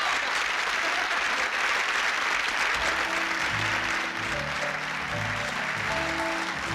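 Studio audience applauding. About three seconds in, a band strikes up the introduction of a song, a bass line and held notes, while the applause fades under it.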